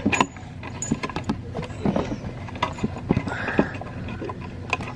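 Irregular clicks and light knocks of chair-assembly hardware being handled: bolts with lock and flat washers pushed through the chair frame and lined up.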